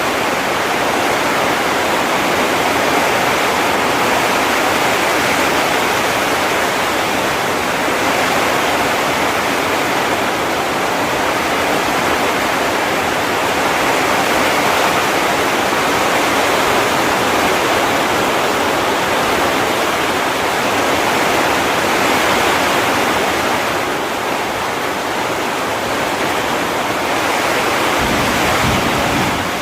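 Heavy rain pouring down in a steady, dense hiss with no distinct drops or thunder.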